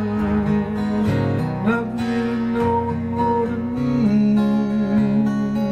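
Gibson jumbo acoustic guitar strummed in a slow country-pop chord pattern, with a man's voice holding long, wavering notes over it.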